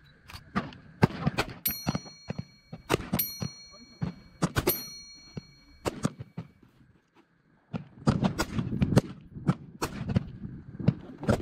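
Rifle fire on a firing range: many sharp shots at irregular intervals, some louder and some fainter, with a brief lull about seven seconds in. Three ringing dings about a second and a half apart sound early on.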